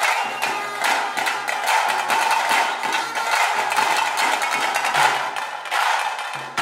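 Music driven by fast, dense, clattering drum beats.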